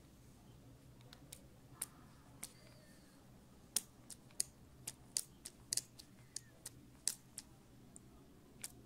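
Plastic trigger spray bottle being pumped over and over to spray water, a string of about eighteen sharp clicks at an irregular pace, quickest through the middle.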